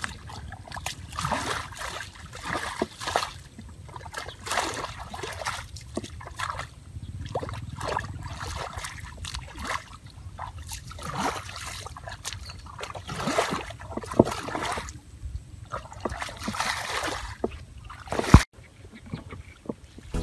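Bare feet wading through shallow muddy water: an irregular run of splashing, squelching steps, roughly one or two a second, with a sharp click near the end.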